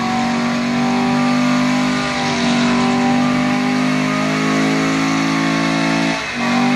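Chevrolet Corvette C7's V8 through a Capristo aftermarket exhaust, held at steady high revs during a burnout with the rear tyres spinning. The revs drop briefly about six seconds in, then come back up.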